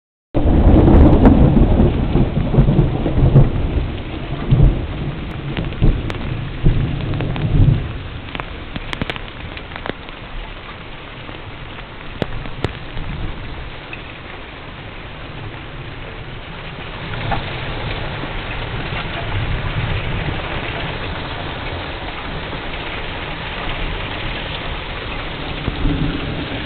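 Heavy rain pouring steadily in a thunderstorm, with a long roll of thunder rumbling through the first eight seconds or so. Later the hiss of the rain grows a little louder.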